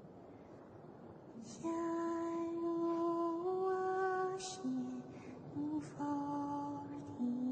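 A woman singing a slow, soothing lullaby in long held notes that step from pitch to pitch, coming in about one and a half seconds in after a quiet start.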